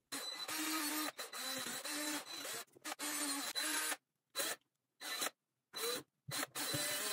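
Cordless drill boring into a raw pumpkin, its motor running under load as the bit chews through the rind and flesh. After about four seconds of near-continuous drilling it goes in four short trigger bursts with silent gaps between them.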